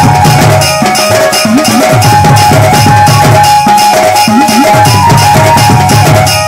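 Loud live band music: an amplified electronic keyboard plays a melody over a steady drum beat and bass line, with the same short phrase coming round about every three seconds.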